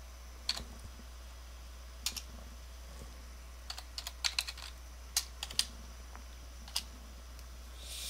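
Scattered keystrokes on a computer keyboard: single key presses and short runs of a few keys, with a slightly louder burst of presses near the end, over a steady low hum.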